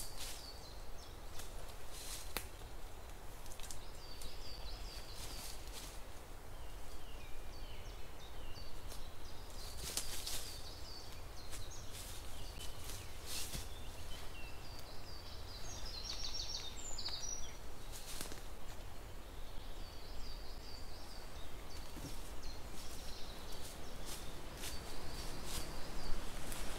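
Woodland ambience: small birds singing in short chirping phrases on and off, with intermittent crunching of footsteps in dry fallen leaves.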